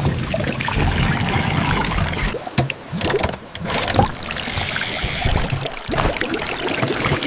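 Water sloshing and trickling, with scattered clicks and knocks.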